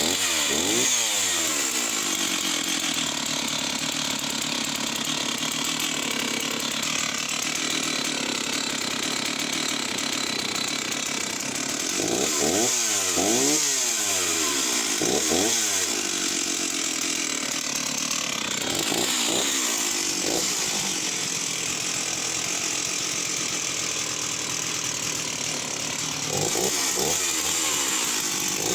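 Stihl 038 AV 61 cc two-stroke chainsaw running at high revs, cutting through oak. The revs drop and pick up again several times as the throttle is eased and reopened between stretches of steady full-throttle running.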